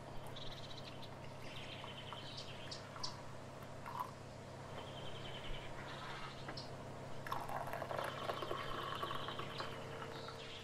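Birds chirping in short trills. In the second half, frothed milk is poured into a ceramic mug of coffee with a liquid splashing sound.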